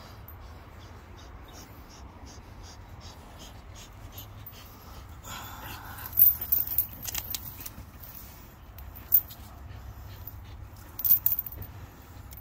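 American pit bull terrier breathing hard through its nose in short rhythmic breaths, about two a second, while it hangs by its jaws from a rope toy. Its metal chain clinks and clatters sharply several times in the second half.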